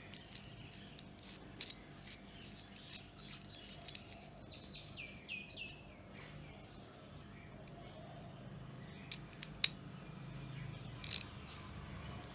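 Small sharp clicks and taps of metal parts and tools being handled while a washer and nut are fitted onto a bicycle pedal spindle, the loudest click about nine and a half seconds in. A bird chirps four times in quick succession in the background, about four to six seconds in.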